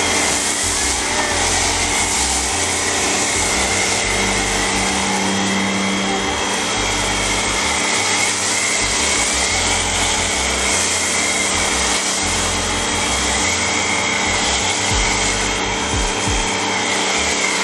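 Pressure washer running steadily while a foam cannon sprays foam onto a car: a constant motor drone under the hiss of the spray.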